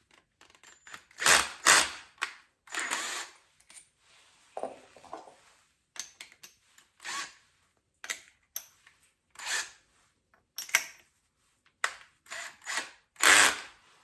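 Irregular clicks and knocks of tools and hinge hardware being handled and set down, with a few heavier thumps, the loudest about a second and a half in and again near the end. No drill is running.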